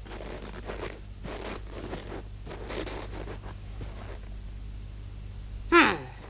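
Irregular scraping and rustling noises, then near the end a single loud whistle-like tone that slides quickly down in pitch: a cartoon sound effect.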